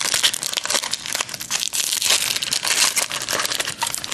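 Foil wrapper of a 2007 Razor Poker trading-card pack crinkling steadily as it is handled and pulled open by hand.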